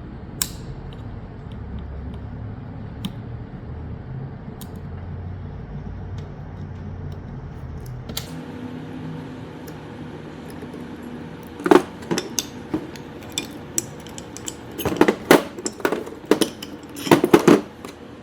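Steel parts and hand tools clinking and clacking against each other as the blade assembly of a hydraulic cable cutter is taken apart, with snap ring pliers working the snap rings off its pivot hinges. A low steady hum runs for the first several seconds, then a quick run of sharp metallic clicks and clanks comes in the second half.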